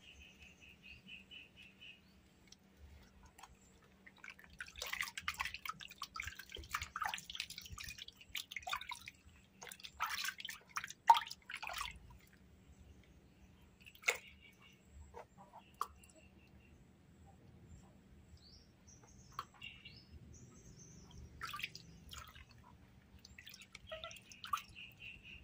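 Soapy water splashing and sloshing in a plastic basin as a baby monkey is rubbed and scrubbed by hand. The splashing is busiest in the first half, then thins to scattered splashes and drips, with a few short high-pitched chirps in between.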